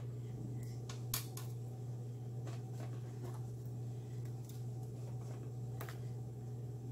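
Cookies being handled in a paper cookie box: a few light clicks and taps, the sharpest just over a second in, over a steady low hum.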